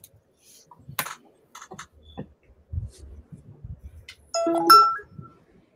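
Light taps and scratches of people drawing on paper, then, about four seconds in, a short chime of two notes that is the loudest sound here.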